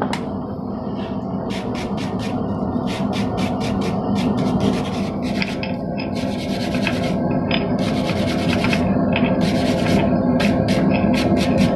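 Rasping, scraping strokes of abrasive work on the forged steel ball end: many short strokes and two longer ones of about a second near the middle, over a steady low hum.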